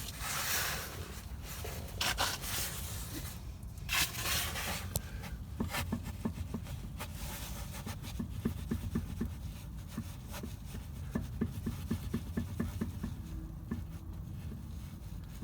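Front driveshaft of a BMW X5 E70 being jerked back and forth by hand on a stationary car, knocking with play. After a few rustling scrapes, a rapid run of short knocks comes at several a second. It is an unexplained front-end knock that the owner cannot say is normal for the driveshaft.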